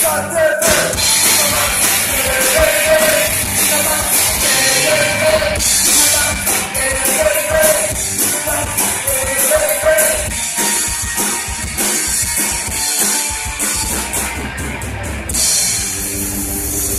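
Live rock band playing: drum kit with steady cymbals, electric bass and guitar, with singing over it.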